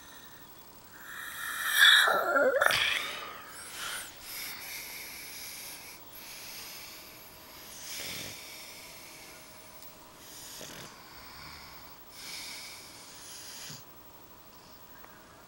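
A pug and a man snoring together. There is one loud snore with a sliding pitch about two seconds in, then a string of softer snoring breaths every one to two seconds.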